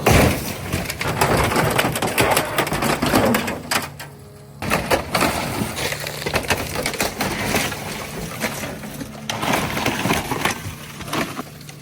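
Dense, rapid clattering and crunching of metal, with a brief lull about four seconds in, over a steady low engine hum.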